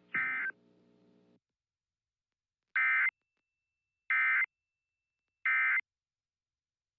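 Emergency Alert System end-of-message data tones: three short, equal bursts of warbling two-tone digital code, about 1.4 seconds apart, marking the end of the alert. A similar short burst sounds right at the start.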